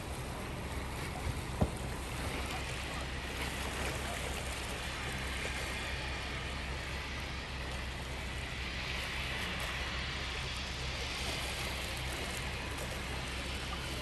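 Waves washing and breaking across an artificial surf lagoon, a steady rush of water that swells in the second half, over a low wind rumble on the microphone. Two short knocks about a second and a half in.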